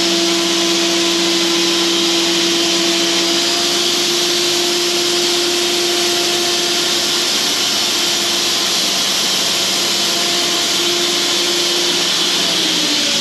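Cooks portable band sawmill running with a steady whine. Near the end its pitch falls as the mill winds down.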